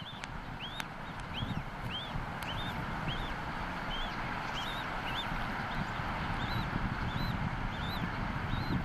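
Newly hatched bald eagle chick peeping to beg for food: a steady series of short, high chirps, each rising then falling, about two a second, over a steady rushing background.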